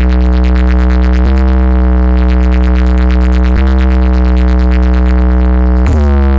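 Loud electronic bass drone played through a DJ sound system: one deep synthesizer tone held steady, with a brief break or retrigger about every two and a half seconds.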